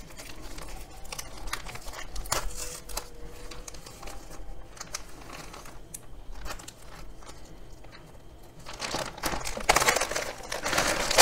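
Frosted plastic packaging bag crinkling and rustling as it is peeled open and handled, with scattered crackles, growing louder near the end as the bag is lifted and pulled about.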